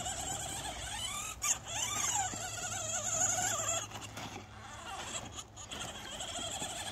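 Electric motor and gearbox of a radio-controlled toy monster truck whining, the pitch rising and falling as it speeds up and slows; the whine drops off about four seconds in.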